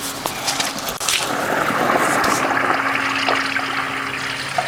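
Water from a sump pump's discharge pipe gushing out as the pump kicks on in its cycle, the rush swelling about a second in and then holding steady.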